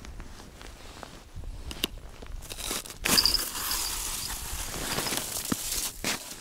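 Crunching and scraping of snow and thin ice, with clothing rustle, as an ice-fishing tip-up is lifted out of its hole; the hole has skinned over with ice. The handling noise gets louder about three seconds in.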